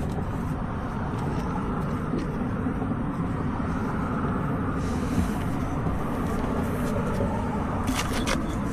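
Steady low vehicle rumble, with a few short light clicks near the end.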